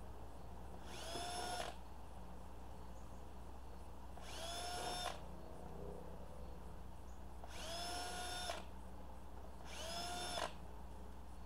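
Cordless drill run in four short bursts, each under a second. Its motor whine rises quickly, holds steady, then cuts off.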